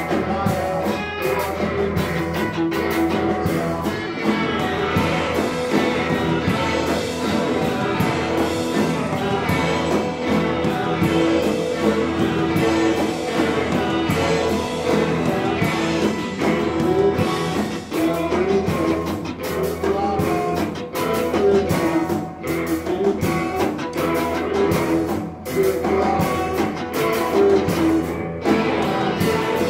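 Rock band playing live: loud, guitar-led rock with sharp percussive hits running through it.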